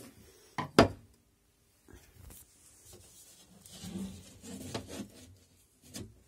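A sharp wooden knock just under a second in, then rubbing and knocking of wood as a wooden compartment lid in a camper's furniture is lifted open.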